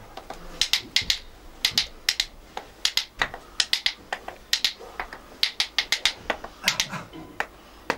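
Wooden spoons clacked together in short runs of two or three sharp clacks, repeated irregularly, in imitation of a stork's clattering bill.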